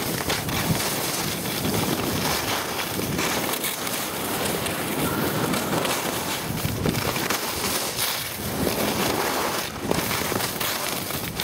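Skis running over packed snow on a downhill run, with wind rushing over the microphone: a steady rush that swells and eases now and then.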